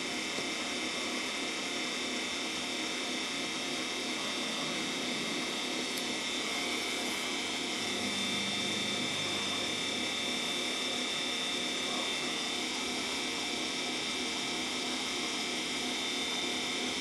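Hella rotating beacons running: their small electric motors and turning reflectors give a steady whirring hum with a high whine.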